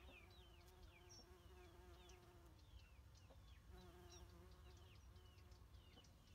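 Bumblebee buzzing in flight close by, a faint hum that breaks off about two and a half seconds in and comes back briefly a second later. Faint short high chirps repeat behind it.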